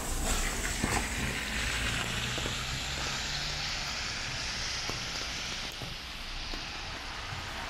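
Steady hiss of rain and wet-road traffic on a city street. A vehicle's tyres swish on the wet asphalt, swelling over the first few seconds with a low engine hum and easing off about six seconds in.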